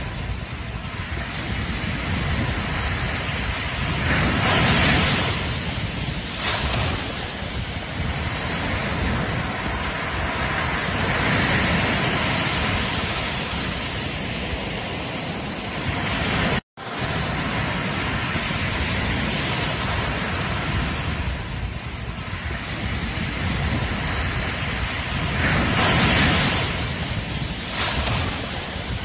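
Ocean surf washing onto a beach, swelling and falling back every several seconds. The sound cuts out for a split second a little past halfway.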